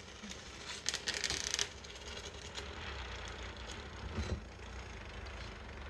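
Handling noise: a brief cluster of clicks and plastic crinkling about a second in, over a low steady hum.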